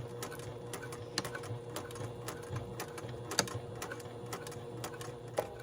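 Sewing machine stitching through heavy hoodie fabric and zipper tape: a steady motor hum with the needle ticking, stopping near the end.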